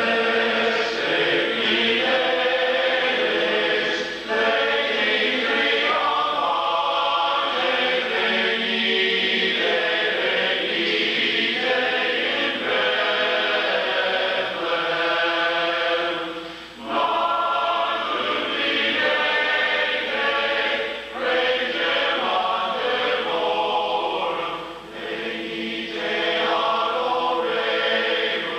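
A large men's barbershop chorus singing a Christmas song a cappella in close harmony: long held chords, with short breaks for breath between phrases.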